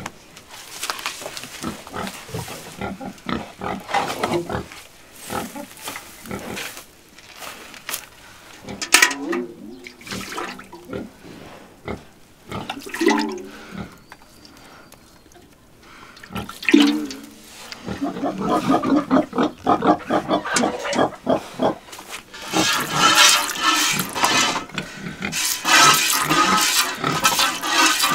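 A cow milked by hand into a metal pail: rapid, rhythmic squirts of milk striking the pail, dense and steady over the last ten seconds or so. Before that, rustling in the straw and three short low grunts from the cow.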